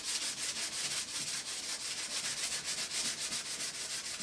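Sandpaper being rubbed back and forth by hand in quick, short strokes over the chipped hull of a cedar-strip canoe, sanding down damage before resin goes on. The strokes are rapid and rhythmic, several a second.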